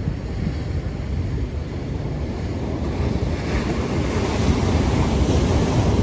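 Ocean surf washing in over shoreline rocks, growing louder as a wave breaks against the rocks near the end, with a low wind rumble on the microphone.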